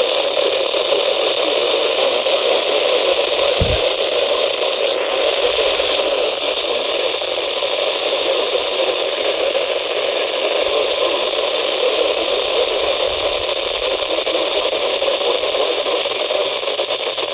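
Radio static: a steady, even hiss from a weather radio receiver with no broadcast voice coming through.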